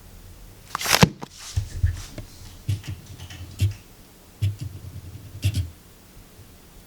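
Close handling noise as a fireworks cake box and the camera are moved about: a sharp click about a second in, then a run of soft low thumps and small rattles that stop near the end.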